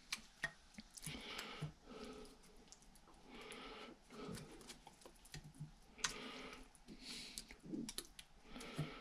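Quiet kitchen handling while preparing ribs: scattered light clicks and taps with short soft rustles.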